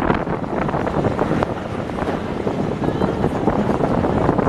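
Wind buffeting a microphone held out of a moving railway carriage's window, over the steady running noise of the train on the track, with scattered light clicks and knocks.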